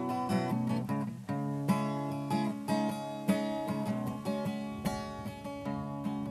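Acoustic guitar strummed and picked, an instrumental passage of a song with no singing, the chord changing a little past a second in and heavier strums falling about every second and a half.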